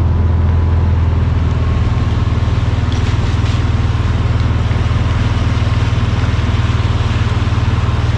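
A small vehicle engine running steadily at an even speed: a loud, unchanging low drone with a fast, regular pulse.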